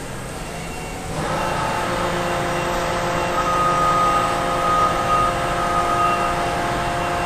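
Industrial machinery running steadily: a continuous mechanical hum with several steady whining tones laid over it, getting louder about a second in.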